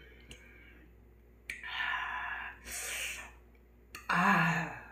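A person's breathy exhales, then a short, louder voiced sigh near the end.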